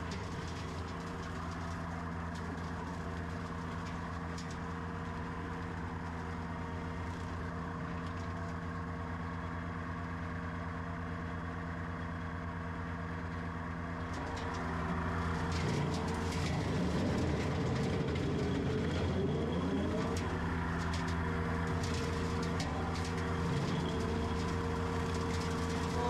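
Compact track loader's diesel engine running steadily. From about halfway through it gets louder for several seconds, its pitch rising and falling, then settles back to an even run.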